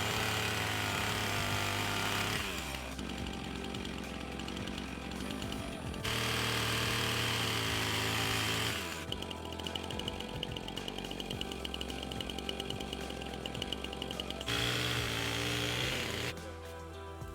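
Chainsaw revving in three loud bursts of about two to three seconds each: one at the start, one in the middle and one near the end, over steady background music.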